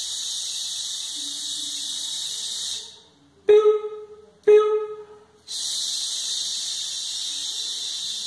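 A man's voice imitating sounds: a long, steady 'shhh' like a waterfall for about three seconds, two short high 'piu' chick chirps a second apart, then another long 'shhh'. The sounds mark the long and short notes of a simple graphic score.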